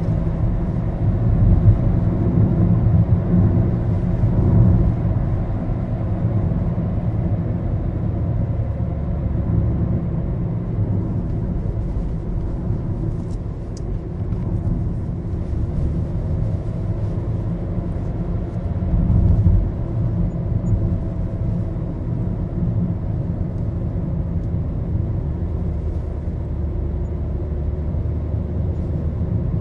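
Road and engine noise inside a moving Maruti Suzuki Baleno's cabin: a steady low rumble that swells briefly a couple of times.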